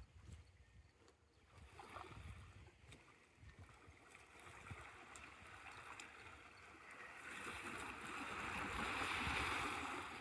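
Faint water sounds, then from about seven seconds a swelling rush of churned water as a motorized foil board passes with its rider lying flat on it. The rush is strongest a little before the end, then eases.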